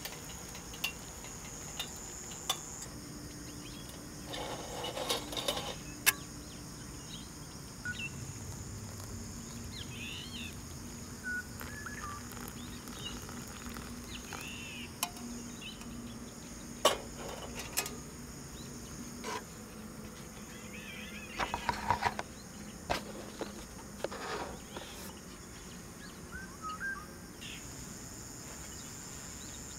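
Insects chirping steadily at a high pitch, with short bird calls now and then. Over this come scattered clinks of a metal camping pot and its wire handle, and hot water poured from the pot into a paper instant-food cup.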